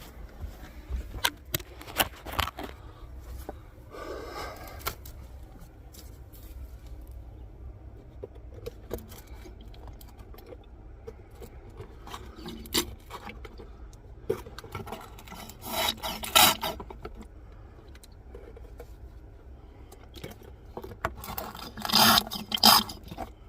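Scattered scraping, rubbing and clicking from hands and tools working around the engine, with louder scrapes about two-thirds of the way in and again near the end.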